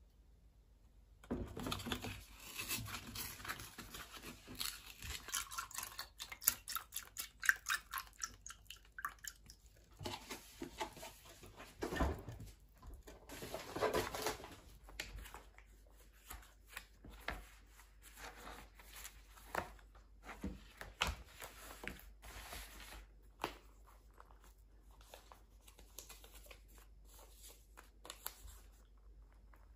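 Apple tea poured from a paper carton into a glass over ice cubes, the ice crackling and clinking. Later, paper and receipts rustle and a pen scratches on a notebook on a wooden table.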